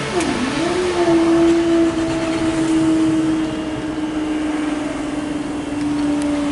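Level crossing barrier mechanism's motor whining as the barrier lifts. The pitch dips and swoops up as it starts, then holds a steady whine that sags slowly lower.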